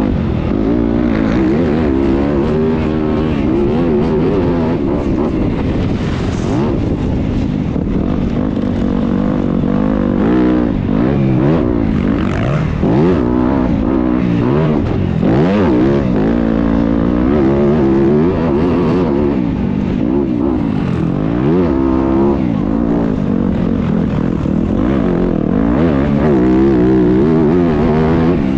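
Several motocross bikes racing together, their engine notes overlapping and rising and falling continuously as the riders open and close the throttle around the track.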